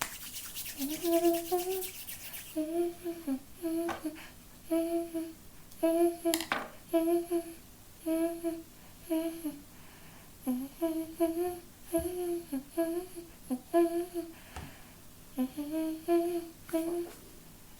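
A woman's voice humming a tune in short, steady notes, with a high hiss in the first couple of seconds and a single sharp click about six seconds in.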